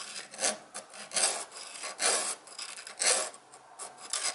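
Round chainsaw file rasping through a saw-chain cutter tooth in about five strokes, roughly one a second. The file is too small for the chain, so it cuts too deep into the tooth.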